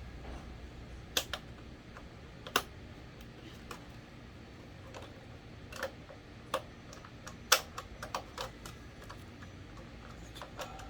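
Irregular sharp clicks and taps as the parts of an electric fan's broken push-button switch are pushed and fitted by hand during a repair, with the loudest clicks about a second in, two and a half seconds in, and seven and a half seconds in.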